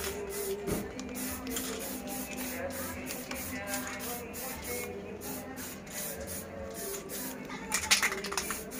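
Aerosol spray-paint can hissing in short, repeated bursts as a motorcycle muffler is sprayed black, with a louder burst near the end.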